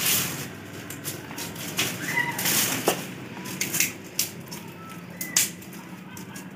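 Dry twigs and thorny branches rustling and snapping as they are broken by hand for kindling, in a string of irregular sharp cracks. A few faint bird chirps sound in the background.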